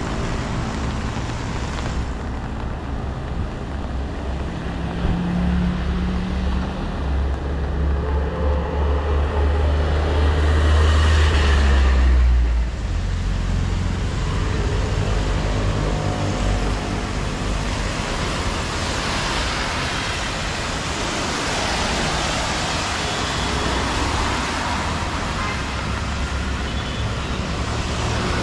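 Street traffic on a wet road: passing vehicles with the hiss of tyres on wet tarmac. A deep rumble builds to its loudest about ten to twelve seconds in and drops off suddenly, and a steadier hiss fills the second half.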